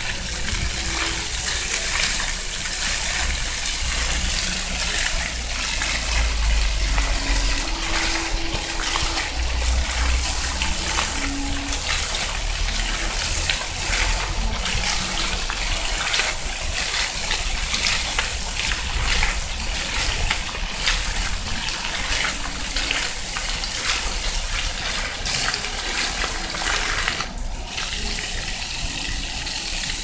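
Ground-level floor fountain: many water jets shooting up from grates in the paving and falling back, splashing steadily on the wet stone.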